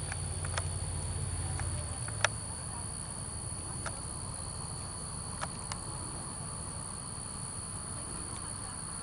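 Evening insect chorus of crickets, a steady high-pitched drone, with a few sharp clicks scattered through it. A low rumble fades out about two seconds in.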